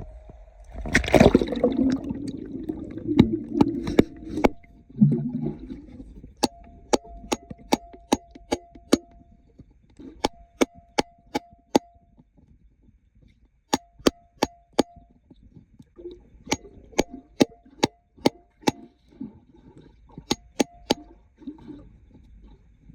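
Hammer striking rock in runs of sharp, evenly spaced blows, about three a second, with a ringing tone under each run and short pauses between runs. A louder scrape and thud come about a second in.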